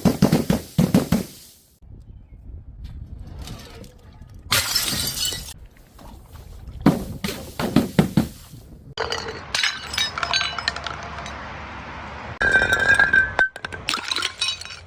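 Glass bottles breaking in several separate smashes, each followed by the crackle and tinkle of shards, with a ringing glass note near the end.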